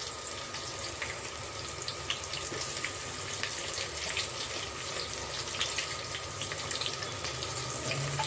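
Chopped onions sizzling in hot oil with whole spices in an aluminium pot: a steady hiss with many small crackles and pops.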